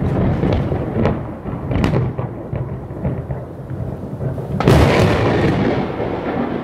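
Thunder rumbling on and off, with a louder, sharper clap about four and a half seconds in that slowly dies away.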